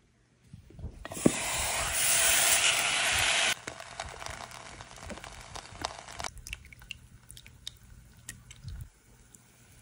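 A consommé-dipped tortilla sizzling in a hot pot: a loud sizzle starts suddenly about a second in, drops back to a fainter sizzle after a couple of seconds, and stops about six seconds in. Scattered light clicks and taps follow.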